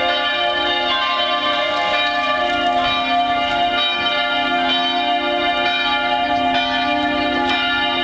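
Bells of the rebuilt Dresden Frauenkirche ringing in full peal, several bells sounding together in a steady, overlapping clang.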